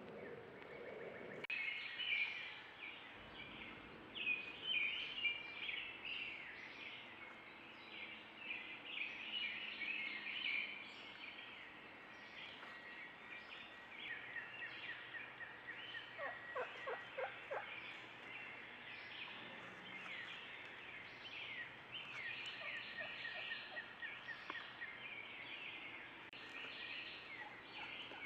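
Wild turkeys calling, including gobbling from a strutting tom, among many short, high chirping calls.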